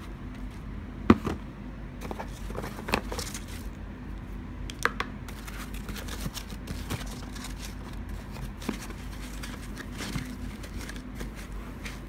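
Clicks, knocks and light rustling from handling a handheld plastic fetal Doppler and its probe in a cardboard box with foam packing, the sharpest click about a second in. A faint steady low hum runs underneath.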